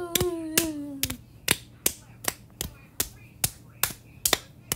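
A person's voice holding a drawn-out, falling cheer that trails off about a second in, over a steady run of sharp clicks, about two and a half a second.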